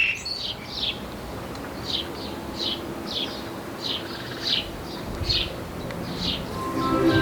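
A garden bird chirping a short, high note over and over, roughly once or twice a second. Music fades in near the end.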